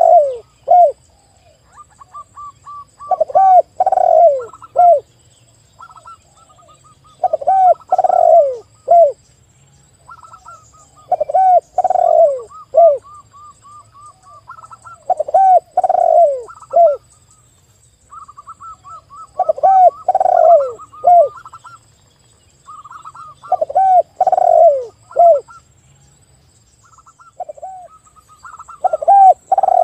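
Spotted dove and zebra dove calling together. About every four seconds comes a group of three or four loud, down-curving coos, with quicker, higher staccato notes in between.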